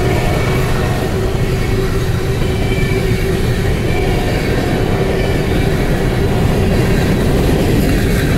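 Steady, loud rumble of a moving vehicle, with a constant humming tone over it.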